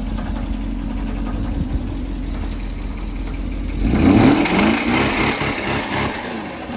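Mercedes-Benz S500 W140's V8 idling, then revved about four seconds in, rising in pitch and settling back. The engine is said to be knocking.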